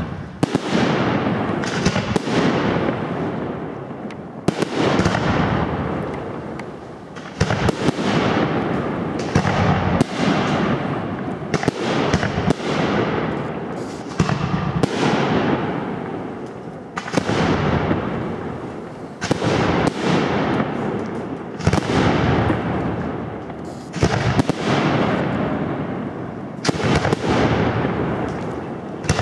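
Aerial display fireworks: a loud bang roughly every two seconds, each followed by a long rolling echo that fades before the next, with smaller crackles between them.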